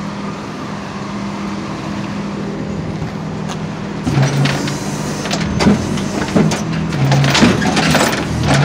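Tow truck engine running with a steady hum. From about four seconds in come irregular bangs and scraping as the flatbed is worked and the keyless car, unable to roll in neutral, slides down the soap-wet steel deck.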